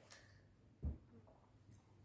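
Near silence with faint clicky mouth sounds of chewing a burger, and one short dull thump a little under a second in.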